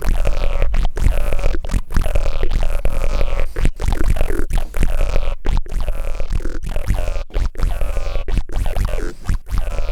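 Blipblox synthesizer playing a looping electronic sequence through a modular Eurorack synth, with an audio divider adding deep sub-octave waves beneath it. The notes are choppy, with frequent short breaks and sweeping filter tones.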